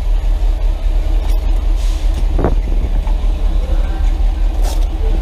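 School bus running with a deep, steady rumble heard from inside the cab, with a couple of brief rising-and-falling sweeps over it.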